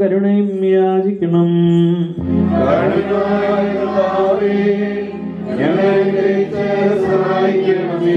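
Liturgical hymn chanted by a man's voice into a microphone, joined about two seconds in by a group of voices singing together in a fuller, lower chorus.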